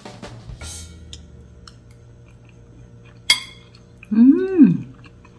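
A metal spoon clicks once against a ceramic bowl, then a second later a woman gives a short, loud appreciative "mmm" while tasting food, its pitch rising and then falling. Boogie-woogie drum music fades out in the first second.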